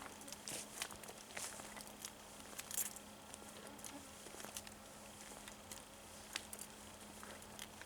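Faint, irregular rustles and small crackles of footsteps on the forest floor, with a faint steady hum beneath.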